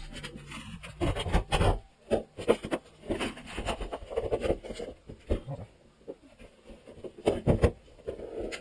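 Irregular knocks, scrapes and rubbing of hands-on building work, as panels and boards are handled and fitted into place.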